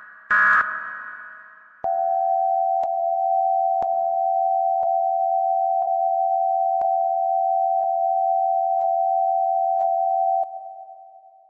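Synthesized 'Great Mother' megaphone sound effect: a short, loud blaring burst of several tones, then a long steady single tone held for about eight seconds with faint ticks about once a second. The tone fades out near the end.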